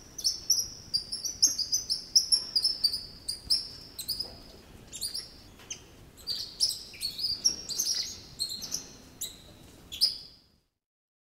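Coati chirping: a quick, uneven run of short, high-pitched chirps and squeaks that stops near the end.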